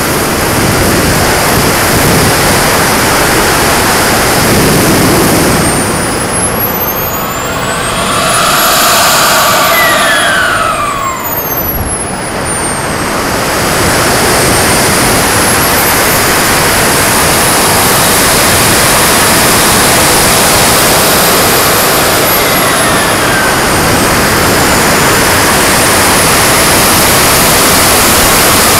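Radio-controlled model jet's small gas-turbine engine whining in flight, heard from on board over a steady loud rush of air past the camera. The whine glides up and down in pitch, most clearly about a third of the way in, where the overall level briefly dips twice.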